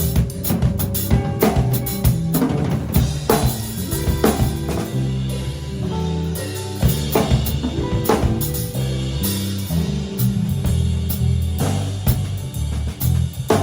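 Instrumental band of drum kit, electric bass and guitar playing a groove. The drums, with bass drum, snare and rimshots, sit on top of a bass line moving from note to note.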